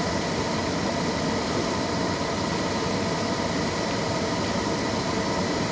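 Steady rushing noise of a car's air conditioning blowing, heard inside the cabin, with the engine running to power it.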